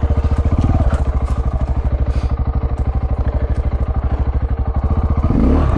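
KTM 690's single-cylinder engine running at steady revs with an even pulse, and light ticks and clatter of brush and debris against the bike as it pushes through scrub.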